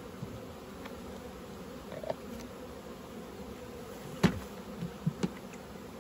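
Honeybees humming steadily over an open hive. A few sharp plastic knocks come about four to five seconds in, as a plastic bucket's lid is taken off.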